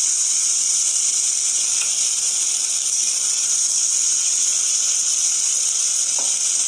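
Rice-and-coconut batter sizzling steadily as it is poured into a hot oiled kadai, with a light tap near the end.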